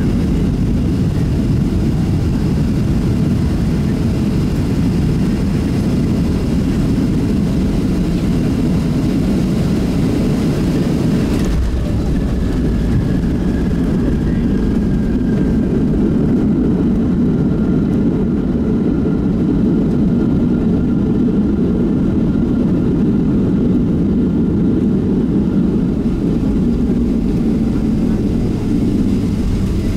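Cabin noise of a Boeing 737-700 heard from a window seat over the wing, its CFM56-7B engines steady on final approach. About eleven seconds in comes a single thud as the main wheels touch down. After it the low rumble of the landing rollout grows fuller, and a faint whine slowly falls in pitch as the jet slows on the runway.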